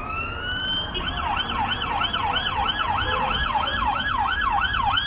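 Emergency vehicle siren sounding in the street: a wail that rises for about a second, then switches to a fast yelp warbling up and down about three times a second, over street crowd background.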